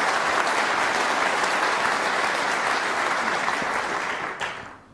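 Snooker audience applauding a brilliant shot, a steady round of clapping that dies away near the end.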